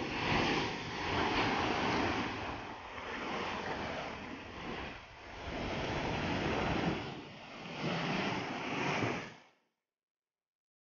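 Sea surf breaking over rocks, a rushing wash that swells and ebbs with each wave, then cuts off suddenly near the end.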